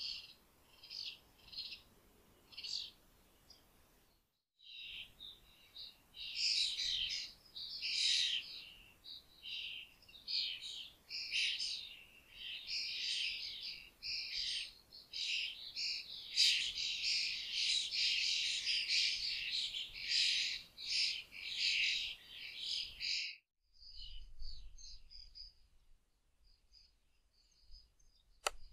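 A flock of small birds chirping and chattering, many calls overlapping. The sound cuts out briefly about four seconds in, then drops off abruptly near the end, leaving only faint scattered chirps.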